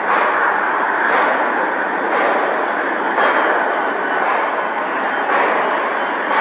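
Steady jet engine noise from a Boeing 757 freighter passing close on final approach to land.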